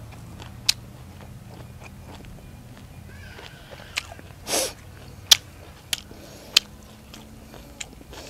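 A man chewing papaya salad and raw vegetables with his mouth full: wet crunches and sharp smacking clicks every second or so, with a short breathy hiss about four and a half seconds in.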